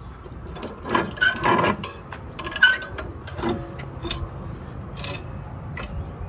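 Irregular metal knocks and scraping as a track tensioner cylinder is handled and shifted in a bench vise, a few of the knocks ringing briefly.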